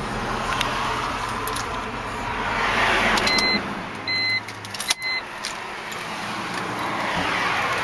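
2003 BMW 325i's 2.5-litre inline-six idling, heard from inside the cabin. Three short electronic beeps sound a little under a second apart, then the engine is switched off with a click about five seconds in.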